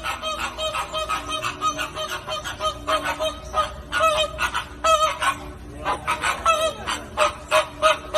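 Flock of flamingos honking: many short calls overlapping, several a second, without a break.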